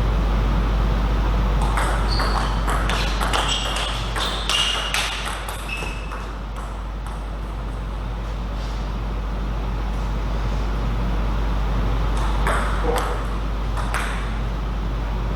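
Table tennis rally: the celluloid ball clicking sharply off paddles and table in quick succession for about four seconds, starting a little over a second in. A few more ball bounces come near the end, over a steady low hum.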